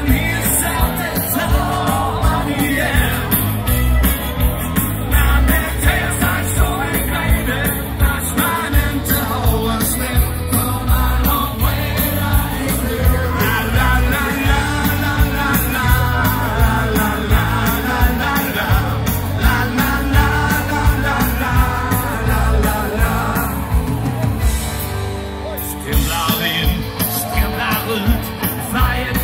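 Live rock music played loud through a PA, with a steady beat and singing, and a crowd yelling along.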